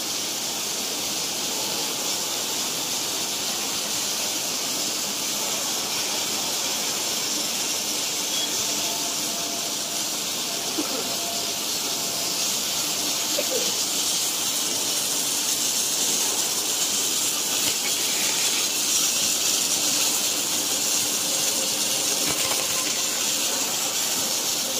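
Automatic arc welding machines welding excavator idler wheels: a steady, even hiss of the welding arcs.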